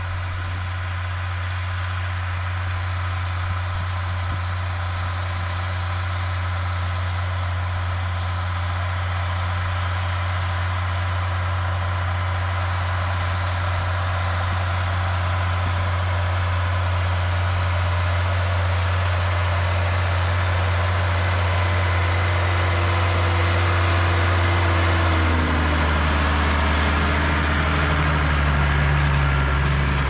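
Farm tractor engine running steadily under a constant hiss; about 25 seconds in its note shifts lower and heavier.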